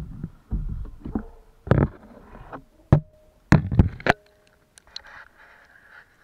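Handling noise from a waterproof action camera being lifted out of the water: a run of dull thumps, then a few sharp knocks against the housing about three to four seconds in, dying to a faint hiss.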